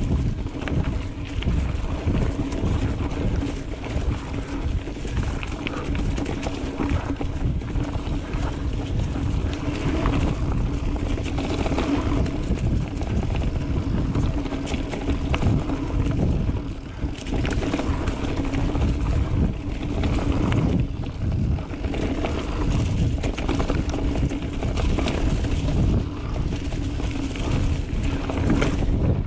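Wind buffeting the microphone during a mountain bike ride, with a steady low hum under it.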